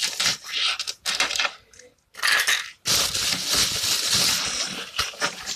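1p coins clinking as they drop into a plastic Kinder Egg capsule, then a dense metallic clattering of coins rattling together from about two seconds in.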